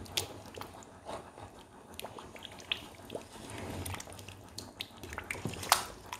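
A spoon stirring thick Nigerian tomato stew in a pot: wet squelching and scattered clicks of the spoon against the pot, the sharpest one near the end, over a faint low hum.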